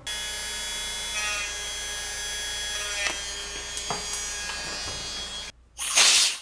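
Handheld rotary tool with a small sanding drum running at a steady high whine, cutting off about five and a half seconds in. It is followed near the end by a short, loud, breathy burst.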